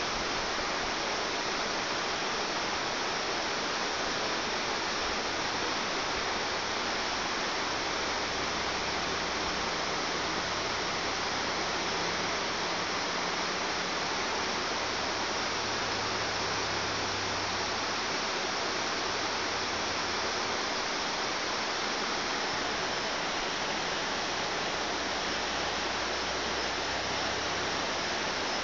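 Mountain stream rushing, a steady, even sound of running water without a break.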